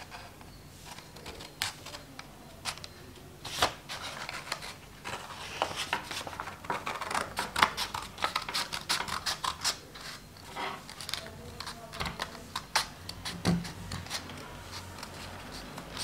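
Scissors snipping through folded white chart paper along a curved outline: a run of short crisp cuts, a few at first, then quick and steady through the middle, thinning again near the end.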